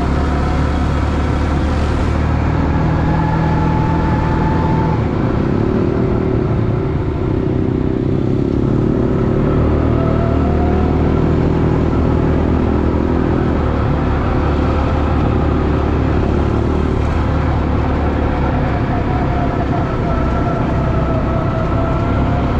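An ATV engine running under way, a steady low drone whose pitch shifts up and down a few times as the throttle changes.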